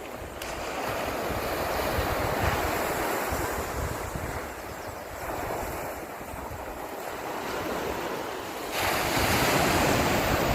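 Ocean waves breaking and washing up a beach, swelling and ebbing, with a sharper rise near the end as a wave breaks. Wind buffets the microphone with a low rumble.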